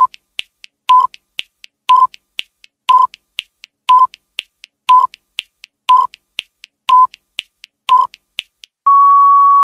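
Countdown timer sound effect: a short electronic beep once a second, with quicker, fainter clock-like ticks between the beeps, ending about nine seconds in with one long steady beep as the count runs out.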